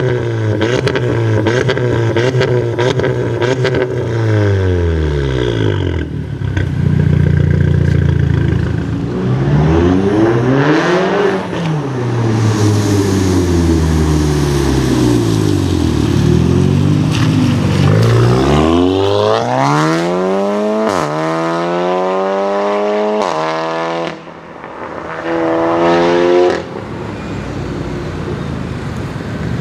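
Volkswagen Golf 7 R's turbocharged four-cylinder through a decatted Armytrix exhaust: revved up and down several times with sharp crackles at first, then pulling away hard through several quick upshifts. The engine sound falls away in the last few seconds.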